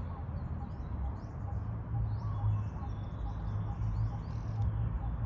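Small birds chirping over a steady low rumble, with one faint short note repeating about twice a second.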